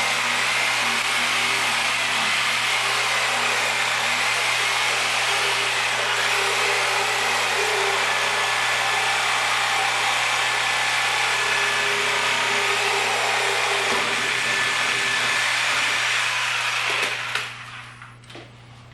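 An electric saw runs steadily, cutting through the rubber of a Michelin PAX run-flat tire, and stops abruptly near the end, followed by a few short knocks.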